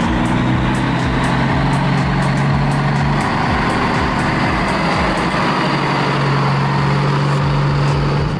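Heavy vehicle engine running steadily with a low hum that fades for a moment midway and comes back.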